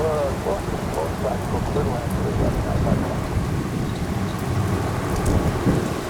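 Heavy rain falling, with gusting wind buffeting the microphone in a steady low rumble.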